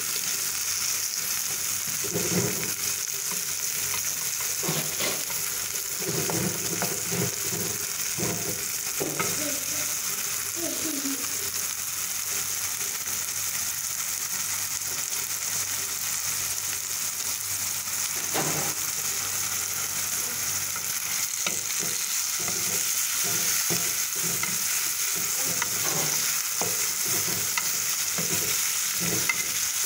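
Chopped tomatoes and onions sizzling in oil in a metal pan with a steady hiss, while a wooden spatula stirs them, scraping and knocking against the pan at irregular moments.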